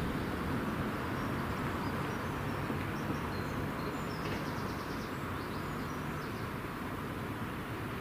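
Steady low rumble of a diesel freight locomotive running, with small birds chirping briefly in the middle.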